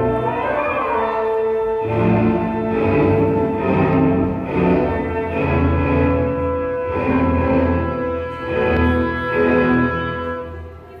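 Recorded orchestral music with bowed strings and a steady pulse, played for a ballet dance; it drops away at the very end.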